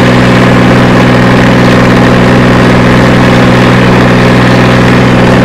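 Tractor diesel engine running loud and steady at a constant speed while the tractor drives along the road, heard from the open driver's seat.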